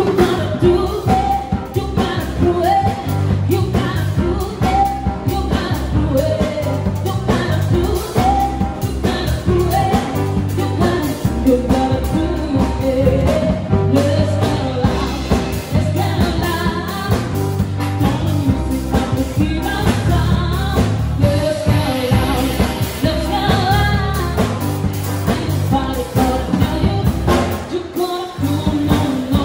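Live band music: a woman singing into a microphone, backed by a drum kit and grand piano, with a steady beat. The music drops out briefly near the end.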